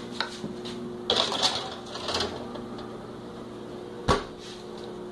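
Metal baking trays clattering and scraping on the oven racks as they are slid into a wall oven, then the oven door shut with a single loud thud about four seconds in, over a steady hum.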